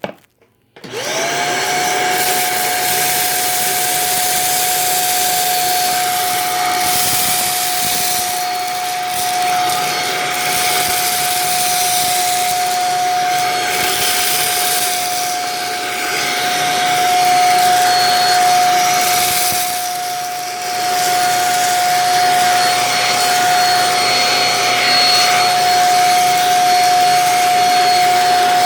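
Upright bagless cyclone vacuum cleaner switched on about a second in, its motor whine rising quickly to one steady high pitch, then running as it sucks up a whole box of dry rice. The level dips briefly about two-thirds of the way through.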